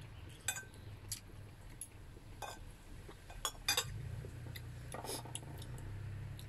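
Metal spoon and fork clinking and scraping against a ceramic plate while eating: a handful of short, sharp clinks spread through, with a quick cluster a little past halfway. A low steady hum runs underneath.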